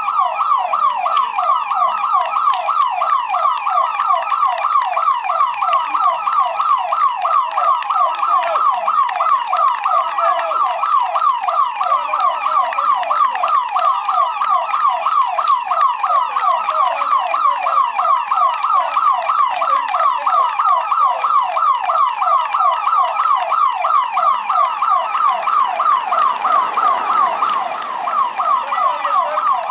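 A siren sounding in fast, evenly repeated pitch sweeps, steady and loud throughout. Near the end a car's engine and tyres pass close by.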